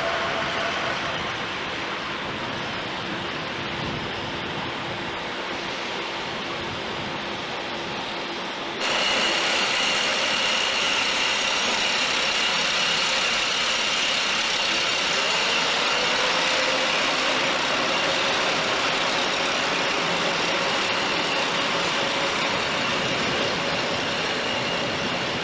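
A diesel shunting locomotive running on the tracks. About nine seconds in it cuts to a DB Class 103 electric locomotive hauling intercity coaches, with a steady high whine and a lower tone that rises near the middle.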